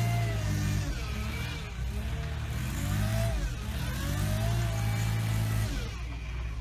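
Small site dumper's engine running under load as it drives over rough soil, its pitch stepping up and down as the revs change, with a higher tone sliding up and down above it.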